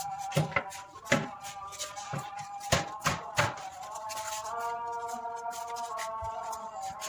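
A motorcycle's metal fuel tank being fitted onto the frame by hand: several sharp knocks and clunks in the first three and a half seconds. Behind them, a melodic sound with long held notes.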